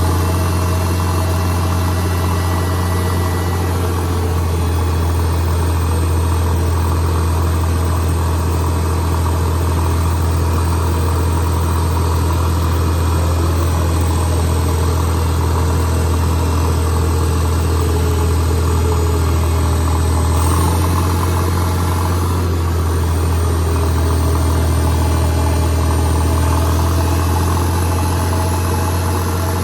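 Caterpillar 977H crawler loader's diesel engine running steadily with a heavy low drone, dipping briefly about two-thirds of the way through.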